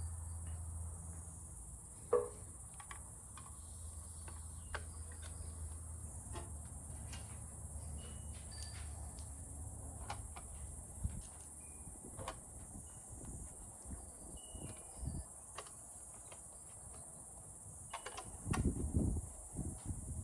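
Crickets chirping steadily, with scattered light clicks and knocks of parts being handled. A low hum runs through about the first half, and a louder burst of handling noise comes near the end.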